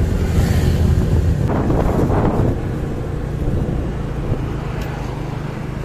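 Motorcycle engine running at road speed with wind buffeting the microphone. A louder rush of wind comes about one and a half seconds in, and the sound drops somewhat after about two and a half seconds.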